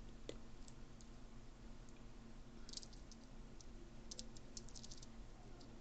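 Faint small clicks of top pins, springs and tools being worked into a profile lock cylinder housing: a few single clicks, a short cluster midway, then a quicker run of clicks about four seconds in.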